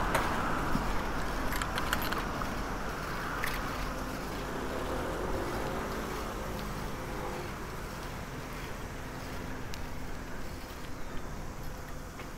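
Road traffic at a street intersection. A vehicle passes close by and its noise fades over the first few seconds, then another engine's hum comes up and dies away around the middle, with a few light clicks.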